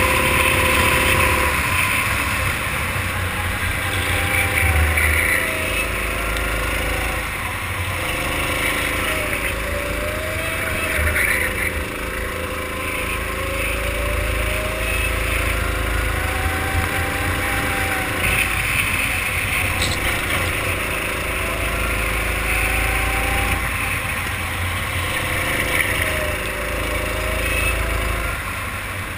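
Go-kart engine heard onboard, its pitch climbing under acceleration and dropping off several times as the kart goes through the straights and corners, over a low rumble of wind on the microphone.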